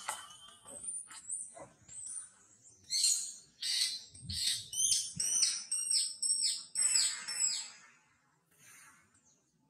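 A bird calling in a run of short, high whistled notes, each falling in pitch, about two a second, starting about three seconds in and stopping near the end. A few soft clicks and two dull thumps come before it.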